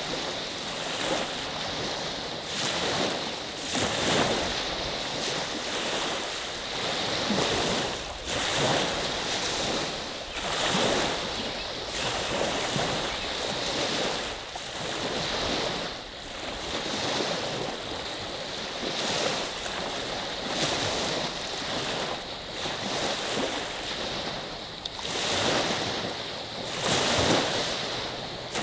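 Small lake waves rolling in and washing onto the beach on Lake Huron's Saginaw Bay: a continuous rush that swells with each wave every couple of seconds.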